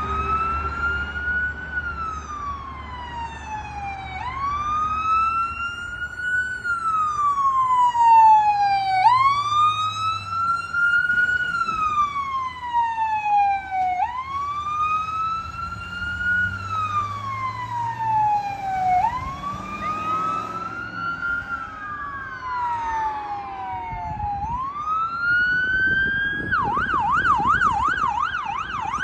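Emergency siren wailing, sweeping up and slowly down about every five seconds as a fire rescue truck goes through the intersection. A second siren overlaps faintly for a moment, and near the end the sound switches to a fast yelp.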